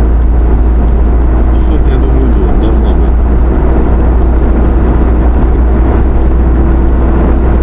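Engine and road noise inside a moving car's cabin: a loud, steady deep rumble with a constant hum over it, the car labouring under a heavy load of scrap iron.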